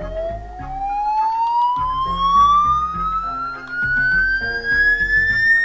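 A sound effect played from a smartphone: one long tone sliding steadily upward in pitch, siren-like, with music playing under it.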